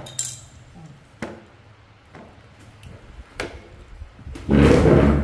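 A few light knocks and clicks as fruit pieces are handled on a plastic plate, then a loud, rough knock-and-rustle lasting under a second near the end.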